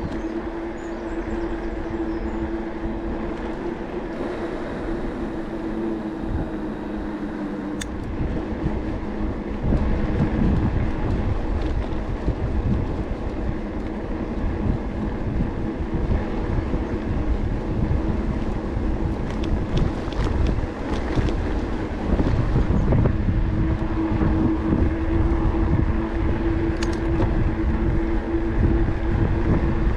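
Electric bike's motor whining at a steady pitch over a low rumble from the tyres and wind. The whine fades about a quarter of the way in while the rumble gets louder, and returns strongly about three quarters of the way through.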